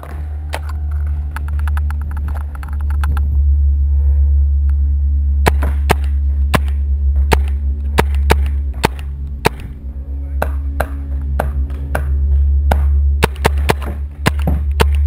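Paintball markers firing: sharp pops at uneven spacing, some single and some in quick strings, over music with a loud steady low drone.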